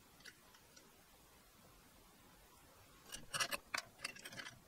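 A few faint clicks, then a quick run of light clicks and taps about three seconds in, from small metal parts of a 3D printer's belt tensioner (bracket, pulley and bolt) being handled.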